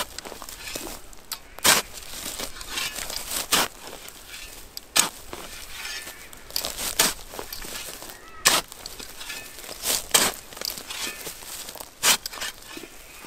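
Steel-bladed shovel digging into grassy soil: about eight sharp strikes, roughly one every one and a half to two seconds, with scraping and crunching of dirt, roots and leaves between them. The blade is skimming off the top few inches of soil to expose bardi grub holes.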